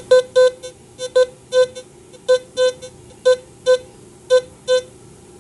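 Teknetics T2+ metal detector beeping as it picks up a worn 1874 German 10 pfennig coin: about ten short beeps of one steady tone, coming in quick pairs roughly a second apart, the detector's signal for a non-ferrous target reading 55 on its display.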